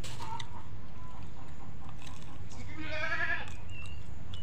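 A single wavering animal call about three seconds in, over a steady low hum.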